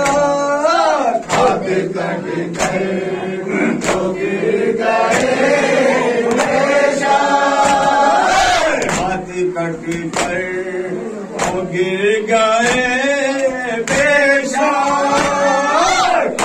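Men singing a noha (Muharram mourning lament) together behind a lead voice on a microphone, with chest-beating (matam) slaps keeping a steady beat about once every second and a quarter.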